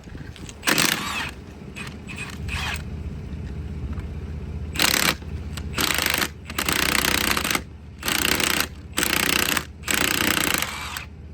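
Impact wrench hammering in about seven short bursts, each under a second to about a second long, as it breaks loose the wheel's lug nuts; a steady low hum runs underneath.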